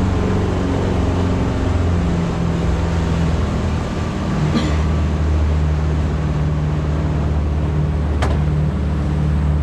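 Boat engine running steadily, with a broad rushing noise over it and a slight shift in its pitch now and then. A sharp click comes about halfway through and another near the end.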